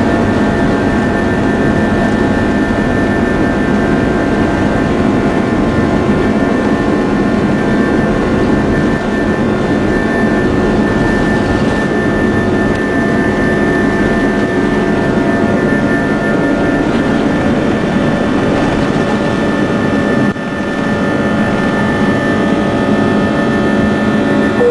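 Boeing 777-200ER's twin turbofan engines at takeoff thrust, heard from inside the cabin over the wing: a steady loud jet roar with several held whining tones, through the takeoff roll and into the climb. The low rumble eases a little about twenty seconds in.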